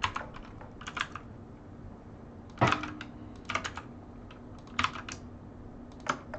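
A few scattered, irregular keystrokes on a computer keyboard, one louder press a little under three seconds in, over a faint steady hum.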